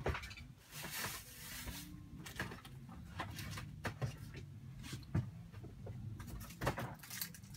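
Quiet, scattered knocks and clatter of someone rummaging for a bottle among things in a workshop, over a low steady hum.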